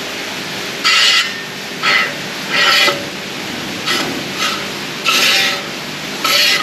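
HT Holden front brake disc rotor being turned on its freshly packed hub, scraping in short bursts about once a second where it rubs on each turn. The rotor is catching on something and not running true.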